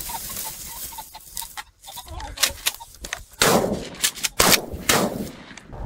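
Logo intro sound effect: light clicks and crackle, then, from about halfway in, four loud shot-like blasts roughly half a second apart, each trailing off in an echoing tail.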